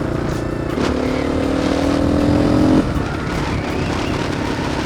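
Dirt bike engine under way, its note rising slowly for about two seconds, then dropping away suddenly as the throttle comes off or a gear changes. A steady rush of wind and road noise runs underneath.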